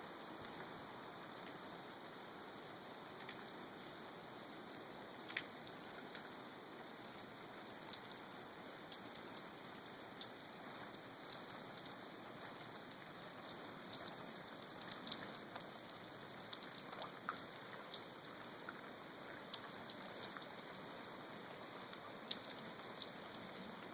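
Light rain falling steadily: a constant, faint patter with many separate drops ticking sharply throughout.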